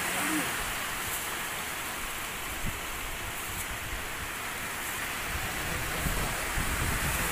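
Steady rushing wash of sea surf, with a brief faint voice just after the start.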